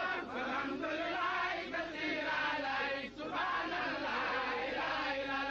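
A crowd of voices chanting together in unison, without a break.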